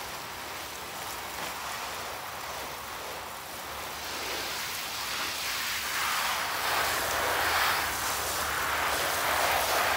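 Garden hose spray nozzle spraying water onto cardboard laid over a raised bed: a steady hiss and patter of water on the cardboard, growing louder about halfway through.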